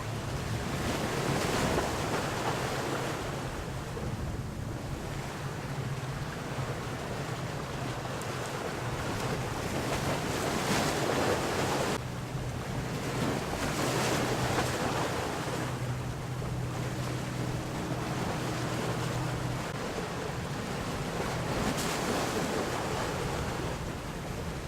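Motor boat engine droning low and steady under the wash of waves, with gusts of wind on the microphone rising and falling every few seconds.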